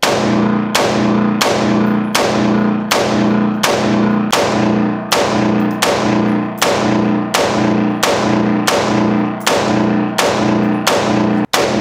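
Ruger AR-556 5.56 mm rifle fired semi-automatically at a steady pace, about sixteen shots a little faster than one a second. Each sharp report is followed by a ringing boom off the concrete-block walls of an indoor range.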